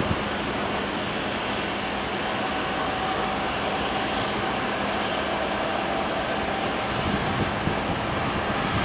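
Boeing 787-8 Dreamliner's jet engines at take-off thrust during its take-off roll, heard at a distance: a steady rushing noise with a faint whine, slowly growing louder as the airliner comes closer.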